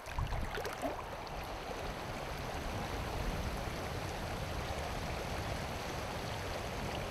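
Shallow river water running and rippling steadily over a stony bed.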